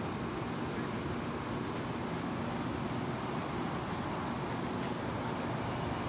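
Steady urban background rumble and hiss, even throughout, with no distinct events.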